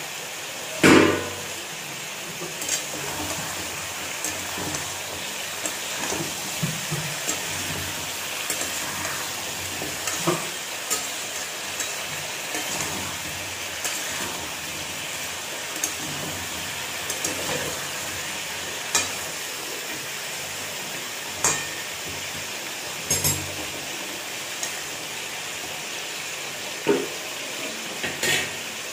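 Small whole potatoes sizzling steadily in hot oil in an uncovered metal kadai. A metal slotted spatula now and then clanks and scrapes against the pan, loudest about a second in.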